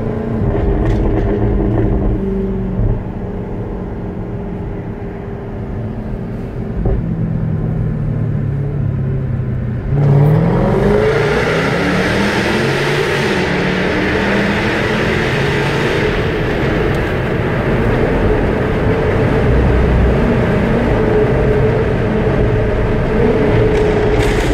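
Supercharged 5.0-litre V8 of a 2016 Jaguar F-Type R, heard from inside the cabin: it runs at a steady cruise for about ten seconds, then the throttle opens suddenly and the engine and exhaust rise in pitch and get much louder. The sound stays loud inside a road tunnel.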